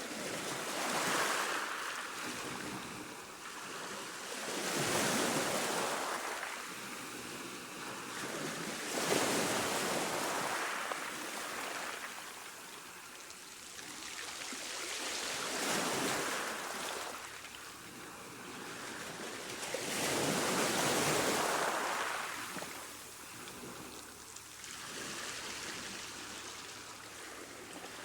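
Calm sea waves washing onto a shore, each wash swelling and then falling back, about every four to five seconds.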